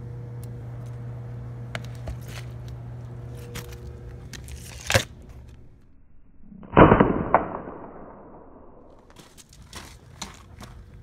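A few sharp clicks, the loudest about five seconds in, then a single loud air rifle shot about seven seconds in that dies away over a second or so.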